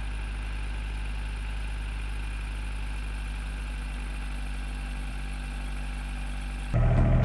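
Nissan Versa's engine idling steadily, just started after sitting all winter. Near the end it cuts abruptly to a louder, different engine sound.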